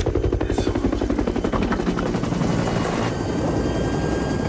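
Helicopter rotor chopping steadily in a rapid, even beat.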